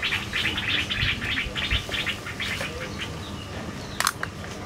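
A bird calling with a fast run of repeated short, high chirps, about six a second, that fades out a couple of seconds in. A single sharp click follows near the end.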